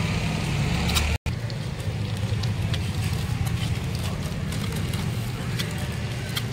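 Eggs sizzling in oil on a large flat tawa, over a steady low rumble, with small scattered clicks. The sound cuts out for an instant about a second in.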